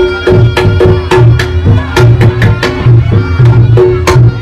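Reog Ponorogo gamelan playing a brisk pattern: drum strokes with struck, ringing gong tones, about three strikes a second.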